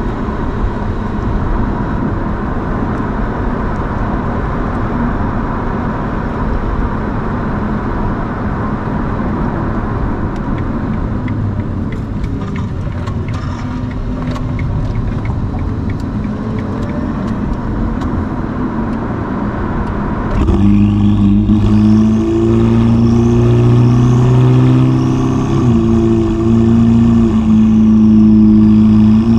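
Ferrari SF90's twin-turbo V8 with a Novitec sport exhaust, heard from inside the cabin. At first the car rolls along with a steady mix of engine and road noise. About twenty seconds in, the engine comes on hard with a loud, deep exhaust note, and its pitch drops once a few seconds later as it shifts up, then holds steady at speed.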